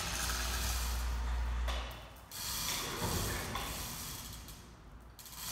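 Overhead electric chain hoist lifting an aluminum boat hull. Its motor runs with a low hum and stops about two seconds in, followed by quieter mechanical rattling from the chain and rigging.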